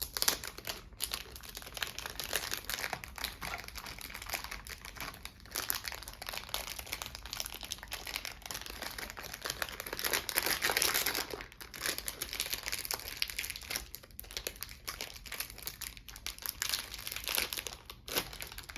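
Plastic packaging crinkling and rustling as a speed cube's box is handled and unwrapped by hand, with a louder stretch about halfway through.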